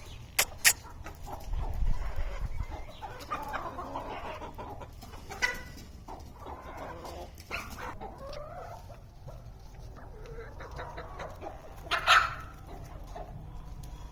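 Domestic hens clucking on and off, with a few sharp taps near the start and one louder, squawk-like call about twelve seconds in.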